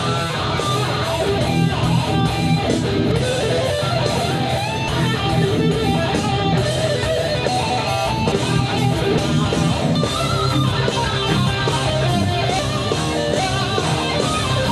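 Heavy metal studio playback: a distorted electric guitar plays a lead line with bends and slides over a full band of drums, bass and rhythm guitar.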